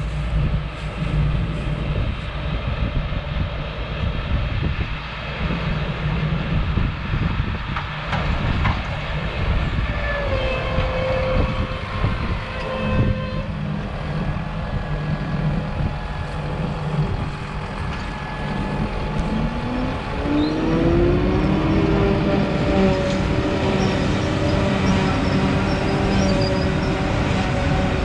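Claas Jaguar self-propelled forage harvester and a Massey Ferguson tractor with forage wagon running together as the harvester chops alfalfa and blows it into the wagon: a steady heavy machinery drone. About twenty seconds in a whine rises in pitch and then holds steady, a little louder.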